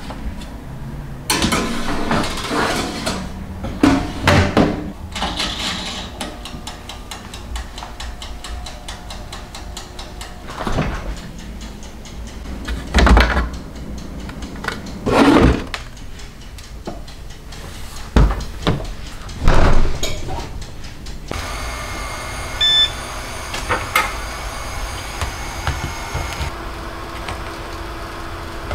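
Household handling sounds: plastic drawers sliding, a refrigerator door opening and closing, and things being picked up and set down. The knocks come one at a time, with the loudest in the middle.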